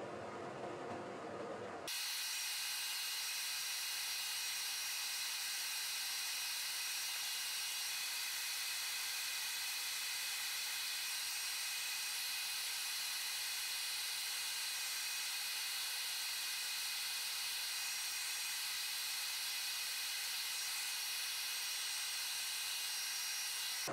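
A steady, even hiss, high-pitched with faint steady tones in it, starting abruptly about two seconds in.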